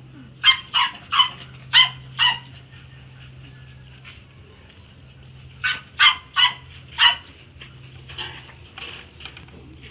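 A dog giving short, high-pitched yelps in two quick runs: five in about two seconds, then after a pause four more, with a few fainter ones near the end.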